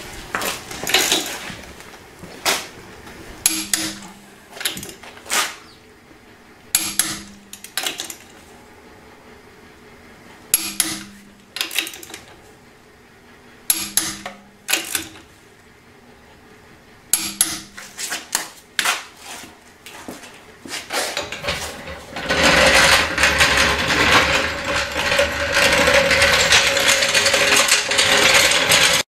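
Metal clicks and clinks of a socket wrench on a pickup's wheel lug nuts as the wheels are tightened back on: a dozen or so short, sharp strokes, some with a brief low ring. For the last seven seconds or so a loud, steady rushing noise takes over.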